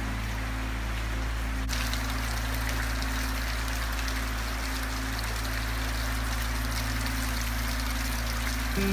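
Steady rain falling and water splashing and trickling into an open water tank, a dense patter that turns brighter and crisper about two seconds in.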